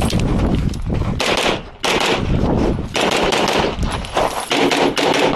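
Pistol fired rapidly in quick strings of shots, with a brief pause in the shooting partway through.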